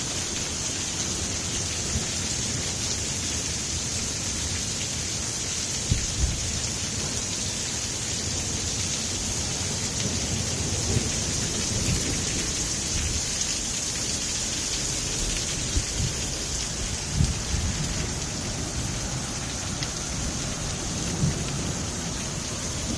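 Very heavy rain pouring steadily in a thunderstorm downpour, with a few short low thuds scattered through it.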